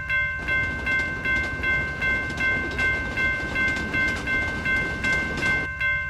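Railroad crossing warning bell ringing repeatedly, a little under three dings a second, while a train rolls through the crossing with a steady rumble.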